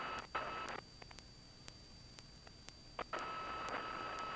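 Faint hiss with a steady high-pitched tone on the aircraft's headset radio and intercom line. It drops out about a second in and comes back with a click about three seconds in, with faint regular ticks throughout.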